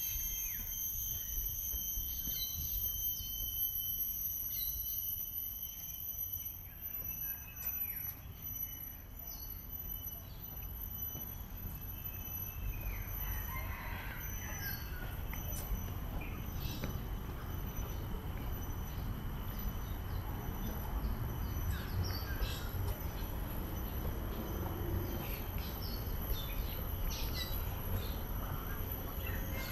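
Birds chirping and calling in short notes over a steady high-pitched insect drone, with a low rumble underneath. The bird calls grow more frequent from about halfway through.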